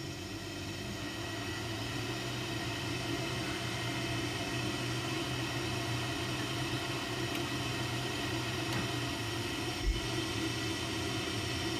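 Ideal Mexico HE30 gas boiler running just after switch-on: its fan and lit burner give a steady hum that builds over the first couple of seconds and then holds. The fan is a bit noisy. There is a faint click about ten seconds in.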